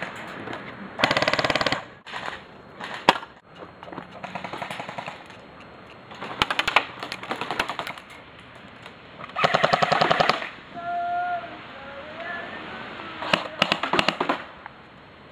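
Airsoft rifles firing full-auto: about four rapid bursts of a second or so each, with a few single sharp cracks between them.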